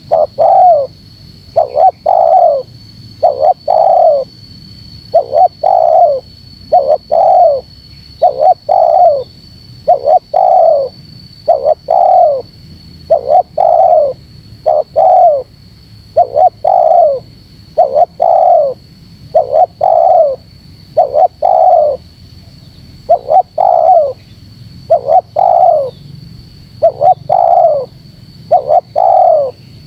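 Spotted dove (terkukur) cooing over and over, short coos coming about one a second: a lure call used to draw in wild doves.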